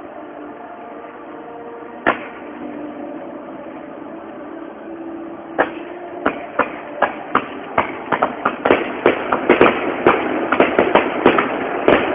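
Fireworks going off: one sharp bang about two seconds in, then bangs that come faster and faster into a rapid crackle of several reports a second.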